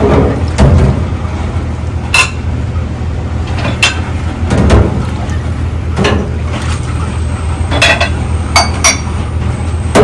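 Dishes clinking against each other and the stainless steel sink as they are washed by hand in soapy water, about half a dozen sharp ringing clinks with some sloshing of water. A steady low hum runs underneath.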